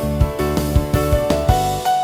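Background music: sustained keyboard notes over a steady beat.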